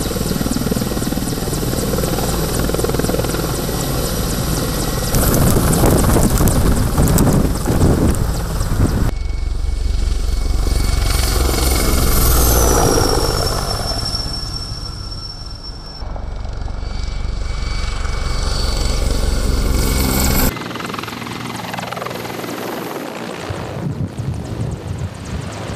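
Mi-24 Hind attack helicopter's rotor and twin turboshaft engines running loud as it hovers and makes low passes, in several spliced takes. About twelve seconds in, a high turbine whine falls in pitch as one passes by.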